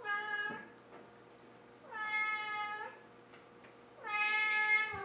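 Domestic cat meowing three times, each a long, steady-pitched meow about two seconds apart, dipping slightly at the end, as it waits to be fed.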